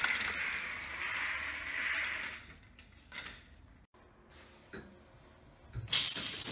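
A steady hissing noise for the first two seconds. About six seconds in, a shower head is turned on, and water sprays from it with a loud, sudden hiss.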